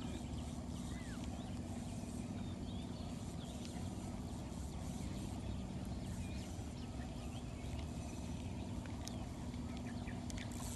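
A small boat motor humming steadily at one pitch, with many short bird chirps and calls over it.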